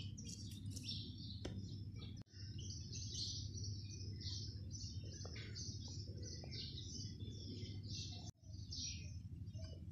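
Small birds chirping over and over, many short calls at once, over a steady low background hum. The sound drops out briefly twice, about two seconds in and near the end.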